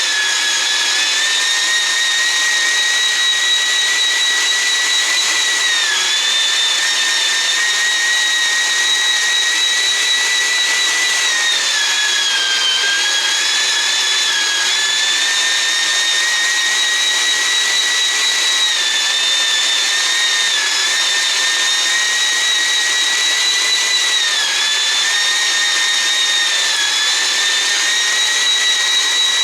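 Keenstar JSMG203 electric meat grinder running as it grinds beef, a steady high motor whine that dips briefly in pitch every few seconds.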